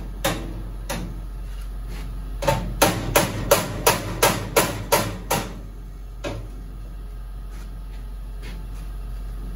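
Hammer blows on a steel radiator support being knocked into place on the frame rails: a few single strikes, then a quick run of about ten at roughly three a second, then one last strike, over a steady low hum.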